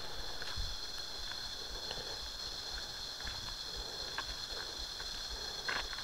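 Forest ambience dominated by a steady high-pitched insect drone, with a few scattered footsteps and clicks on the dirt trail.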